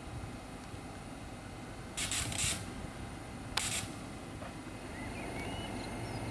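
Short sharp hisses over a steady background hum: three quick ones together, then a single shorter one about a second and a half later. Faint bird chirps follow near the end.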